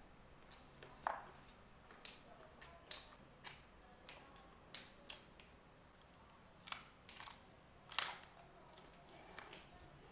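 Someone eating fried chicken with rice, making faint irregular crunches and clicks from chewing and biting, about a dozen spread unevenly.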